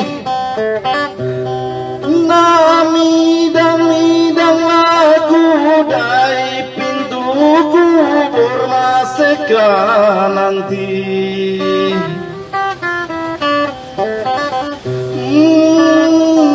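A man singing a tadut, a Basemah Islamic devotional chant, in long wavering notes over a steady instrumental accompaniment.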